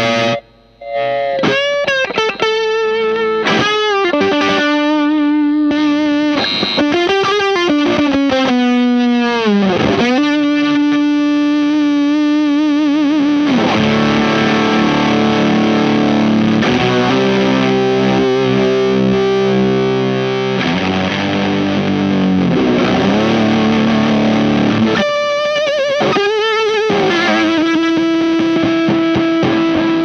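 Strat-style electric guitar played through a Weird Noise Pedals Fuzz It fuzz pedal: heavily fuzzed sustained lead notes with wide string bends and vibrato, then thick fuzzed chords, ending on a long held note.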